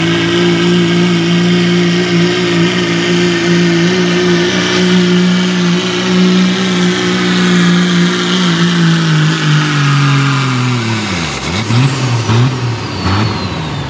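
Second-generation Dodge Ram's turbocharged Cummins diesel pulling a sled at full throttle, a loud steady engine note with a high turbo whine above it. About ten seconds in, the engine drops off sharply as the run ends, the whine falls away, and the engine blips a few times.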